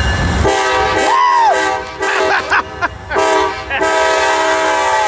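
Amtrak GE Genesis diesel locomotive sounding its multi-chime air horn: a long blast, a shorter broken one, then another long blast.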